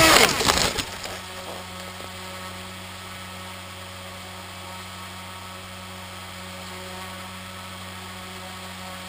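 A Bixler foam RC plane crashing into a tree: a loud crash of the airframe through branches in the first second, then a steady electric buzz with a low hum from the downed plane.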